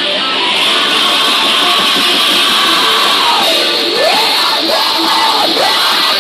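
Heavy metal band playing live: dense distorted electric guitars and drums, with a shouted vocal that slides down and back up about halfway through, then holds harsh notes.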